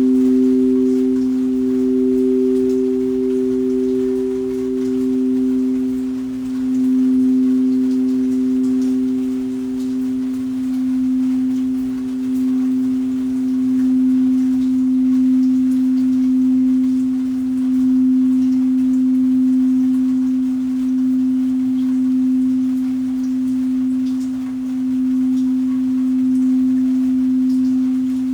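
Singing bowl sounding one long, unbroken low tone, its loudness swelling and easing every second or two. A higher overtone fades away about halfway through.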